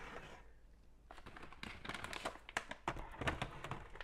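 Rummaging in a kitchen cabinet: starting about a second in, a quick string of light clicks and knocks as containers are moved, with the rustle of a plastic bag of rice being pulled out.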